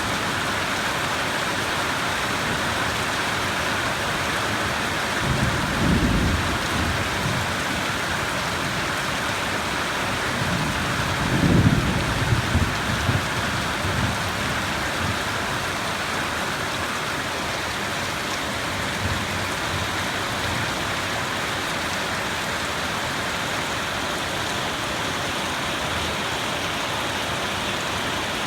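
Steady rain falling in a thunderstorm, with low rolls of thunder about five seconds in and again around eleven seconds, the second louder and longer, and a faint distant rumble near twenty seconds.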